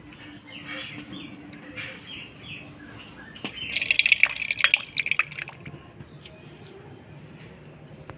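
Water being poured off soaked black mustard seeds from a small clay bowl. About three and a half seconds in there is a splashing pour with sharp drips that lasts under two seconds. Before it come soft, wet swishing sounds of hands working the seeds in the water.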